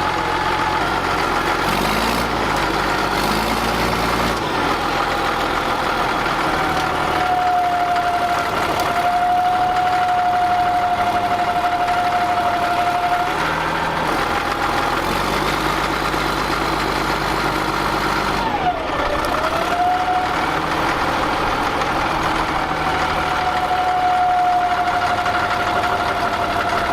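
Caterpillar D6D dozer's six-cylinder diesel engine running steadily, with a sustained whine that dips and comes back a few times as the load shifts, while the machine is worked to break its frozen tracks free of the ground.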